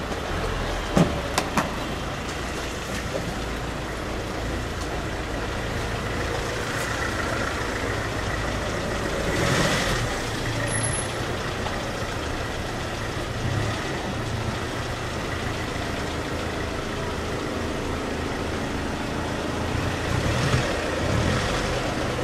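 Steady low rumble of vehicle noise, with a few sharp clicks about a second in and two louder swells, one around ten seconds in and one near the end.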